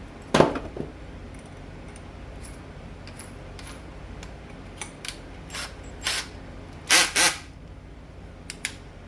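Small hard parts and tools being handled on a work surface: a sharp knock about half a second in, a few light clicks, then two louder knocks in quick succession about seven seconds in.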